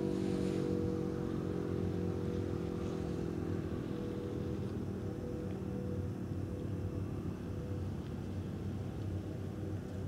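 Distant outdoor warning sirens sounding steady tones at several pitches at once, slowly fading, over a low rumble of background noise.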